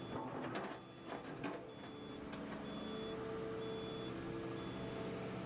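Volvo crawler excavator running, with the quick fit's unlock warning buzzer beeping about once a second to signal that the attachment is unlocked. A few sharp metal knocks in the first second and a half as the quick fit hooks come off the bucket pin, and a steady hydraulic tone rises over the engine from about halfway through.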